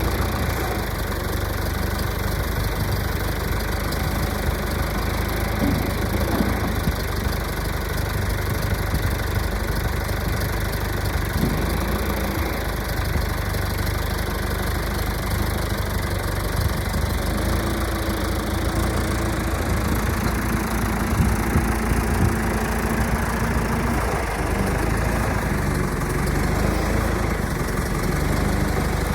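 John Deere 310-A backhoe's diesel engine running steadily at idle.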